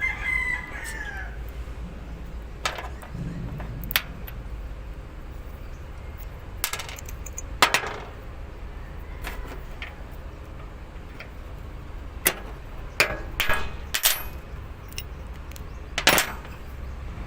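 Scattered metal clicks and clinks of hand tools, bolt and washer being worked on a car battery terminal, about ten irregular knocks with the sharpest near the middle.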